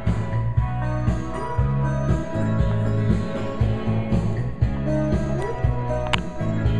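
Music with a steady beat and a strong, repeating bass line.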